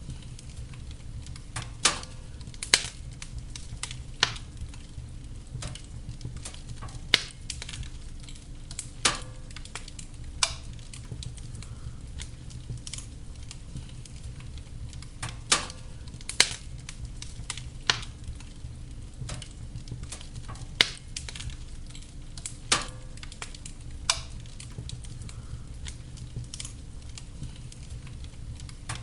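Wood fire burning in a fireplace: a steady low rumble of the flames with sharp, irregular crackles and pops every second or two.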